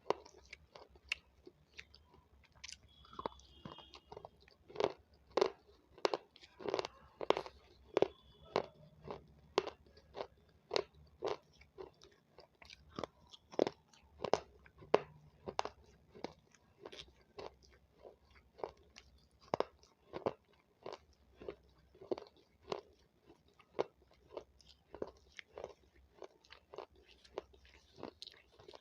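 Close-up crunching and chewing of raw capsicum (bell pepper), steady crisp bites about two a second.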